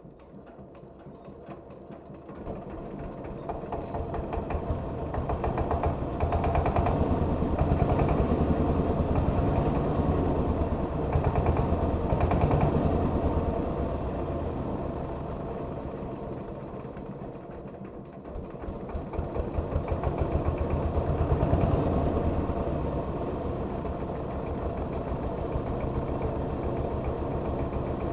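Rice milling machine's engine running with an even firing rhythm. It builds up over the first several seconds, eases off about two-thirds of the way through, then picks up again.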